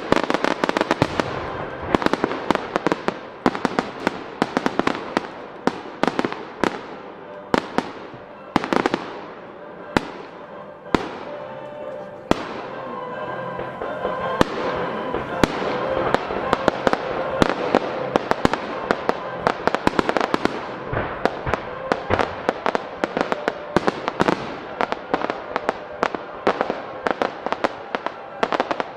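Starmine fireworks barrage: shells bursting in rapid succession, several sharp reports a second that crowd together, with music playing underneath.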